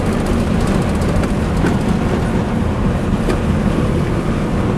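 Steady in-cabin noise of a vehicle driving at speed on a wet highway: a low rumble of engine and tyres with a hiss of road spray, and a couple of faint ticks.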